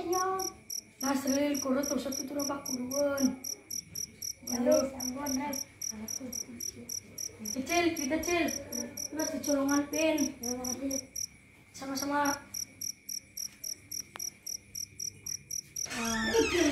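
Crickets chirping in an even rhythm of about four chirps a second, breaking off briefly a little past the middle.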